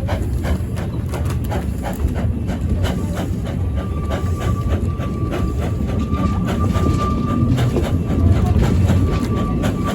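A narrow-gauge train running along the line: a steady rumble with quick, regular clicking of wheels over the rails. From about a third of the way in, a thin, steady high squeal rides on top.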